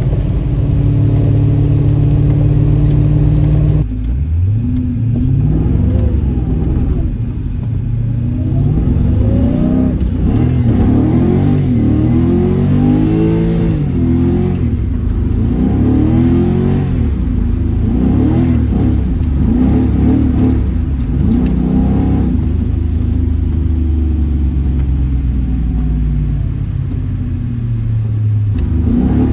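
1994 BMW E34 530i's V8 engine, first holding a steady drone, then from about four seconds in revved up and down again and again in quick sweeps, as when the car is drifted on a wet road.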